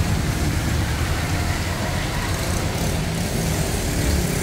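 Heavy rain falling steadily, with road traffic passing underneath as a low engine hum.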